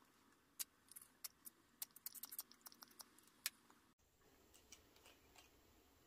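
A quick, irregular run of small sharp clicks and taps from a fountain pen being handled and tapped over paper while ink is spattered, followed by a few fainter ticks.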